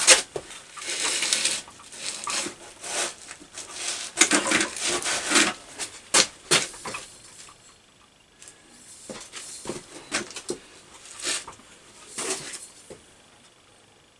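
Irregular knocks, clicks and scraping from working a pipe bender and the steel tube in it, busier in the first half and thinning out near the end.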